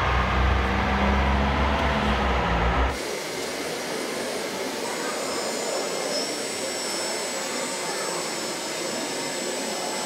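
A loud low steady drone for about three seconds, then it cuts off. After that comes a quieter steady mechanical hum with a thin high whine, consistent with the electric hydraulic pump of a scale RC hook-lift truck running as its arm tips a roll-off container.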